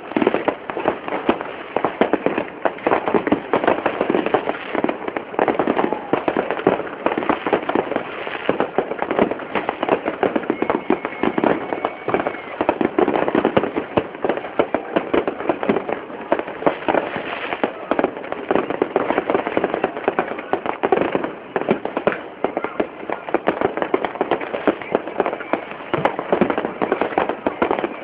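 New Year's fireworks and firecrackers going off without pause: a dense, continuous barrage of bangs and crackling from many launches at once.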